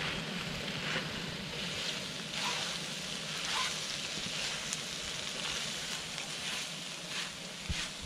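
Scrambled eggs and hot dog pieces sizzling in a hot nonstick frying pan, stirred with a silicone spatula that scrapes the pan now and then.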